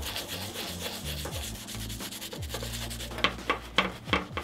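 Small bristle dauber brush scrubbing saddle soap into a leather harness strap: a steady scratchy rubbing, with a run of sharper, quicker strokes about four a second near the end.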